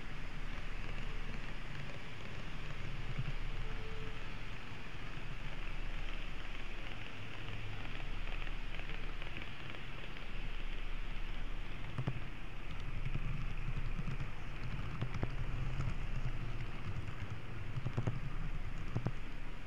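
N-scale model train running along the track, a steady whirring rumble with hiss, with a few sharp clicks in the second half.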